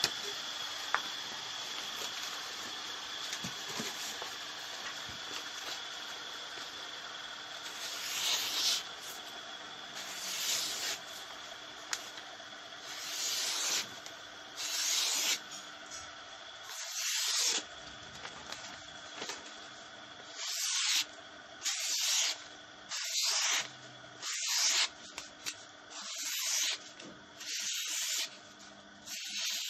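Knife blade scraped against an abrasive in repeated hissing sharpening strokes, about one every one and a half seconds. A steady machine hum runs under the first part and stops about halfway through, leaving the strokes on their own.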